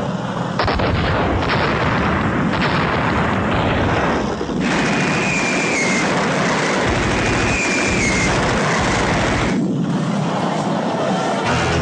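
Battle sound effects on a performance soundtrack: a dense roar of explosions with sharp blasts in the first few seconds, and two short whistles that dip in pitch in the middle. Music comes back in near the end.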